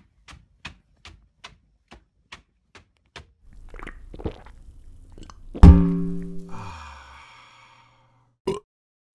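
Sound effects for an animated logo: evenly spaced footstep-like clicks, about two and a half a second, for the first three seconds, then a loud thump with a low ringing tone that fades over about two seconds, and one sharp click near the end.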